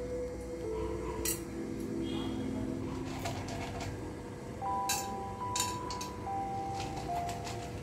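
Soft instrumental background music of slow held notes, with a few sharp clinks of a utensil against a steel cooking pot: one about a second in and two more around five seconds in.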